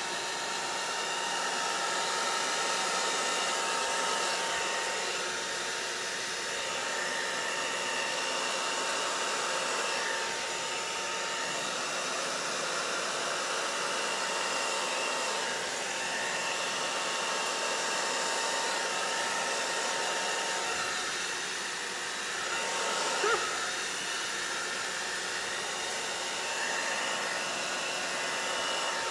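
Hand-held hair dryer running steadily on the wet acrylic pour paint, blowing it out across the canvas, with a thin steady whine over its rush of air.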